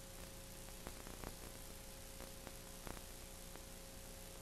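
Steady hiss with a faint steady hum and a few faint clicks: background noise from a blank stretch of analog videotape.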